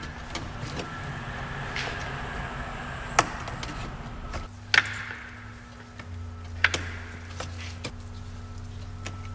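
Hand-tool and hose handling noise: a few sharp clicks and knocks as rubber coolant hoses and their spring clamps are worked off a radiator's fittings, under a steady low hum.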